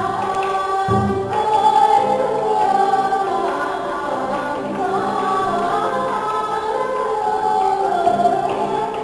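Traditional Vietnamese water puppet theatre music: several voices singing together over a live instrumental ensemble, with a low thud about a second in.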